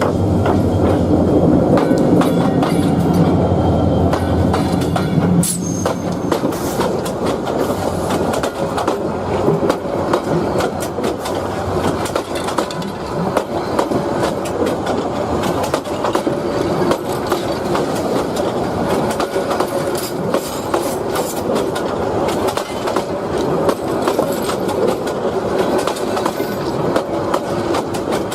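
A train running past. A low, steady engine hum fills the first five seconds or so, then gives way to a continuous rapid clatter of wheels over the rails with some metallic ringing.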